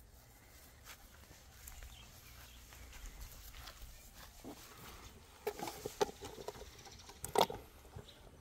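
A black-and-white calf nosing at a metal pail held out to it: a run of short knocks and noises from its muzzle against the pail in the second half, the loudest about a second before the end, over a faint low rumble.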